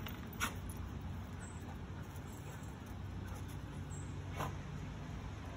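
Dogs at play with a ball: two short, high squeaks, about four seconds apart, over a steady low rumble.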